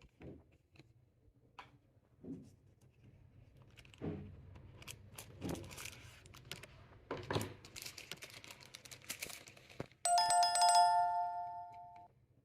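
Packaging and small plastic parts being handled, with rustles and light clicks. Near the end an electronic chime rings loud and clear for about two seconds, two steady tones fading out.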